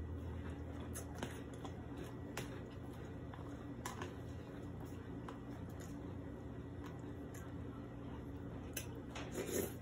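Cereal eating: a metal spoon clicking and scraping in a plastic container of cereal and milk, with soft chewing, a few scattered clicks and a louder burst near the end, over a low steady hum.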